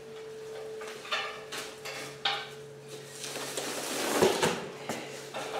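Deer hide being pulled down off the carcass by hand: a few short ripping, scraping strokes, then a longer tearing pull about four seconds in. A steady faint hum runs underneath.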